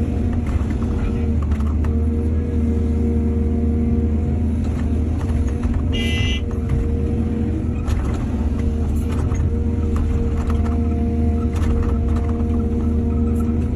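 Excavator diesel engine running steadily, with scattered knocks and clanks. A brief high tone sounds about six seconds in.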